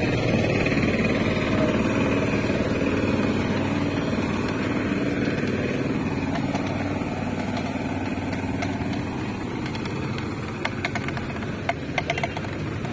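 A motor vehicle engine running nearby, a steady low hum that slowly fades away, with a few short clicks near the end.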